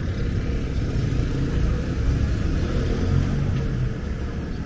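Street traffic: motor scooters and cars passing close by, their engines making a steady low rumble.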